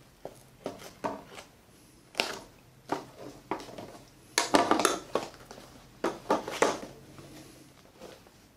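Small cardboard box being opened by hand: a few light clicks, then the lid and packaging scraped and rustled in short bursts, loudest about halfway through.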